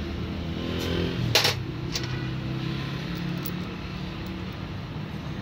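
Small metal parts clicking as a cover and screw are fitted by hand onto a diesel fuel pump head, with one sharp click about a second and a half in and a few lighter ones. Under them runs a steady low mechanical hum.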